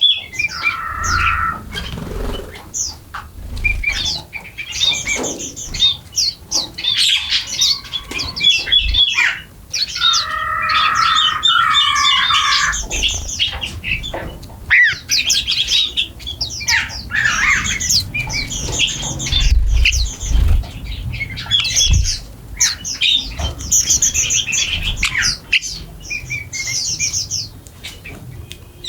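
A flock of small birds chirping and squawking busily while feeding, with many rapid high chirps overlapping throughout and a run of lower, harsher calls about ten seconds in. Scattered soft low thumps come through as well.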